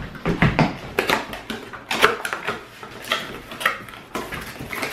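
Cardboard box being handled and opened: a run of irregular knocks, taps and scrapes as it is turned over and its end flap is pulled open.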